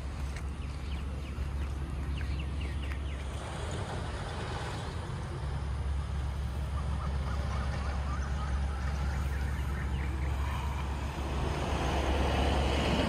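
Road traffic going past, a steady low rumble that grows louder near the end.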